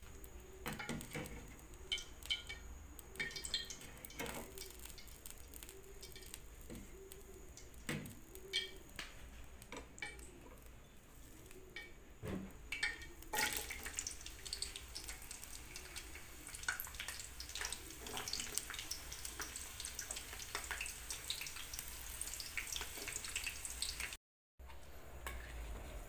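Soup simmering in a steel pot, with drips and light clinks, then from about 13 seconds in chopped shallots frying in oil in a wok with a steady sizzle and crackle.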